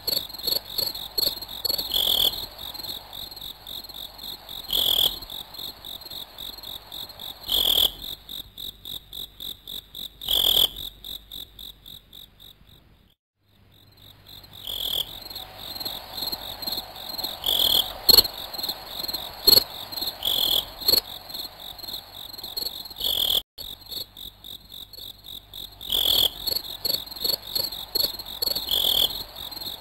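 Crickets chirping: a steady, high, pulsing trill with a louder chirp about every three seconds. It cuts out for about a second around the middle.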